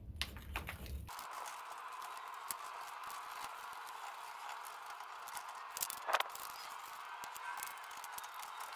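Metal scraper scraping and knocking against a rusty front steering knuckle and spindle, in scattered small clicks with a louder knock about six seconds in. A low hum cuts off abruptly about a second in.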